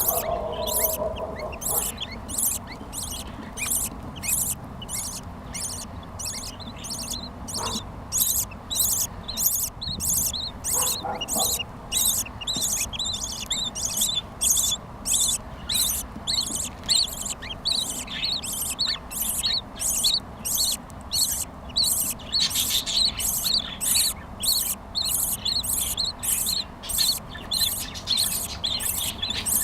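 Budgerigars making short, high squeaky calls in an even, rapid rhythm of about two to three a second.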